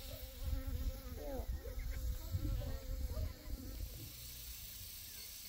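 A flying insect buzzing close by, its pitch wavering, dying away about three and a half seconds in, over uneven low rumbles.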